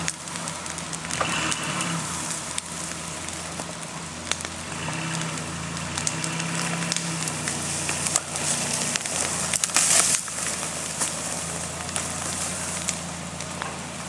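Ford Explorer's engine running steadily under load as it pulls out a tree stump, with continuous crackling and snapping over it and a louder crunch about ten seconds in.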